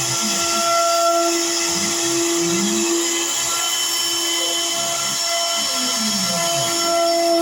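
CNC router milling out a pocket: the spindle runs with a steady high whine and hiss, while low hums rise and fall every second or two as the cutting head moves back and forth.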